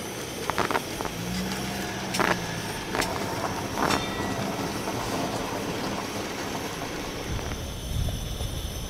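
A high-output camping gas burner running under a pot with a steady rushing noise, with several sharp clicks in the first four seconds and a deeper rumble near the end.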